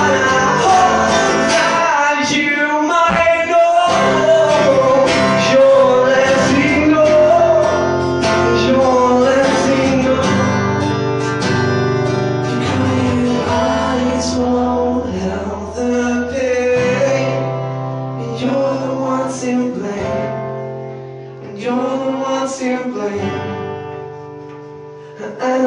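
Live acoustic song: an acoustic guitar played under a male voice singing held notes, growing quieter near the end.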